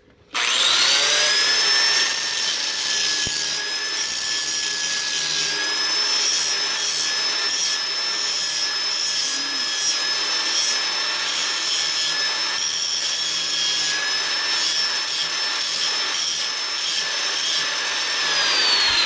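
Angle grinder with a grinding wheel spinning up with a rising whine, then running steadily as it grinds down the saddle-cut end of a pipe to close a gap in the fit. Near the end it is switched off and its whine falls as it winds down.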